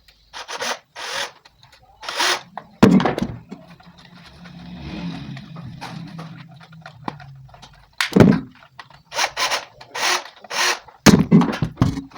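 Handling noises from wiring a 20 A double-pole wall switch: clicks, knocks and scrapes from tools and wires on its terminals, with a loud knock about three seconds in and a cluster of knocks near the end. A low hum rises and fades through the middle.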